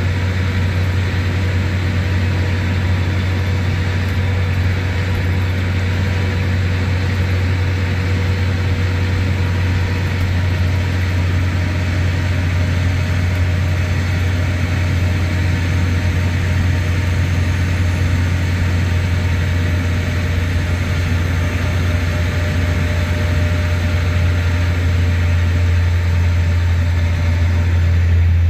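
Mercedes-Benz OM936LA inline-six diesel of an articulated O500UA bus running steadily under way, a constant low drone heard from inside the cabin through the open rear engine hatch.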